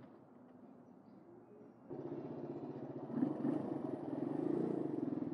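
Suzuki DR125 dual-sport motorcycle's single-cylinder four-stroke engine running low and quiet, then pulling away louder about two seconds in, its revs rising and falling.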